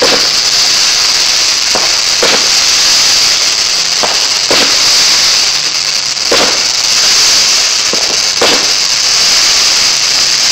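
A multi-shot firework firing sparkling comets in turn: a sharp pop about every two seconds, often two in quick succession, over a steady high hiss.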